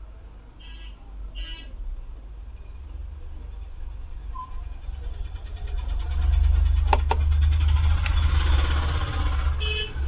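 Motor-vehicle traffic: a low engine rumble swells about six seconds in and stays loud, with a couple of sharp clicks near seven seconds.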